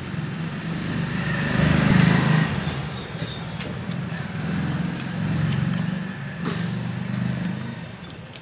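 Motor vehicle engine noise, a low rumble that swells and fades several times, loudest about two seconds in.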